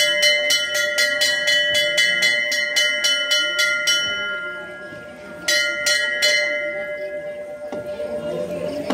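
Temple bell rung rapidly, about four strokes a second for some four seconds. After a short pause come three more strokes about five and a half seconds in, and the ringing then dies away.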